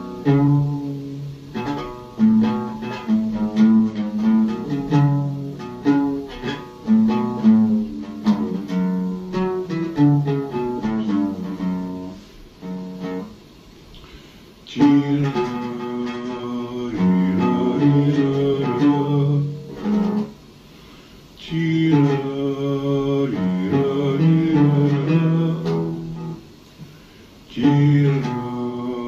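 Oud played solo, a melody of quick plucked notes. From about halfway, a man's voice sings long phrases along with it, with short pauses between phrases.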